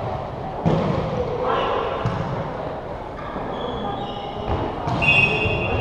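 A ball bouncing on a hardwood gym floor, with sharp thumps about a second in, at two seconds, and again near the end. Indistinct chatter between players echoes around a large gym, and a few high squeaks come in the second half.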